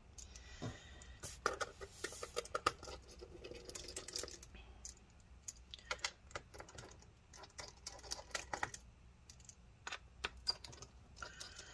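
Irregular light metallic clicks and ticks of a precision pentalobe screwdriver working the screws of a MacBook Pro's aluminium bottom case as the screws are backed out.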